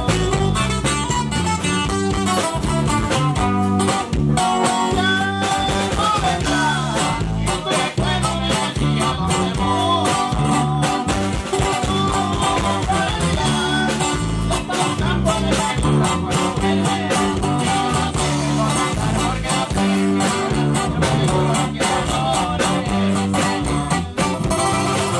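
A live norteño band playing a song, with a bajo sexto and an electric bass over a drum kit. A picked melodic run stands out a few seconds in.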